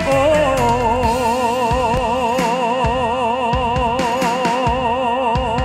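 Male singer holding one long note with a wide, even vibrato over a pop backing track with a steady drum beat, sliding down into the note just after the start.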